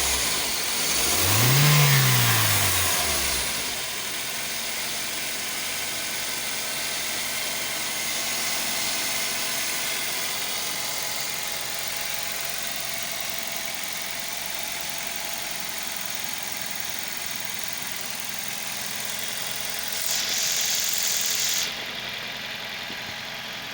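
Toyota 3ZZ-FE 1.6-litre inline-four engine blipped once, revving up and back down in the first few seconds, then idling steadily. A short hiss cuts in near the end.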